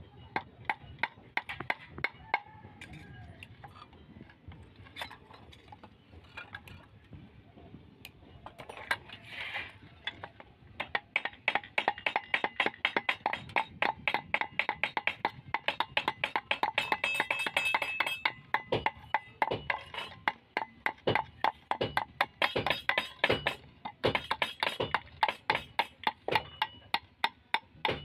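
Small hammer tapping metal ferrules onto the wooden handle of a steel pharsa axe head. The taps are scattered at first, then come quick and steady, several a second, from about eleven seconds in, some with a short metallic ring.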